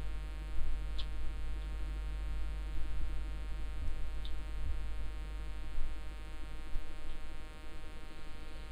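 Steady electrical hum with many evenly spaced overtones, unchanging throughout, with two faint ticks about a second in and about four seconds in.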